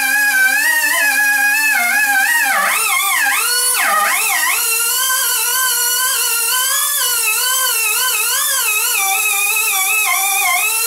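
Micro air die grinder whining at high speed while a felt polishing wheel works a brass rod. Its pitch wavers constantly and sags twice in a row, at about two and a half and four seconds in, as the wheel is pressed harder, over a steady hiss of air.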